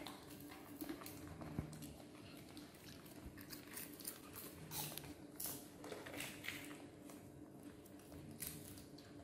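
Two baby macaques chewing and nibbling small pieces of food, faint irregular crunching and mouth clicks.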